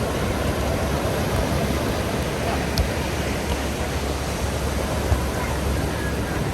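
Steady rush of surf and wind on the beach, with a couple of brief thumps.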